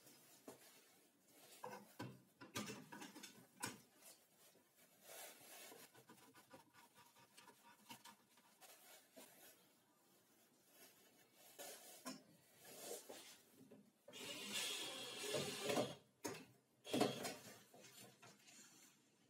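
Quiet handling sounds of a steel ruler and small screws being moved and set against the edge of a wooden saw table: scattered light clicks and taps, with a stretch of louder rubbing and scraping about three-quarters of the way through.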